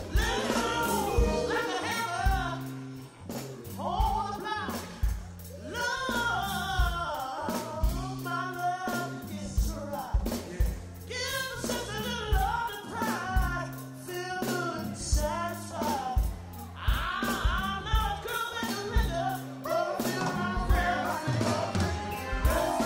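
Live soul band playing, with voices singing over held bass notes and a steady drum beat.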